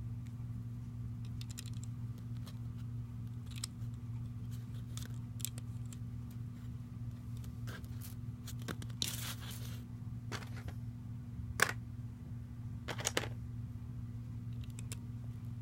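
Lego car model and drawing paper handled by hand: scattered light clicks and a short paper rustle about nine seconds in, with a sharper click a couple of seconds later, over a steady low hum.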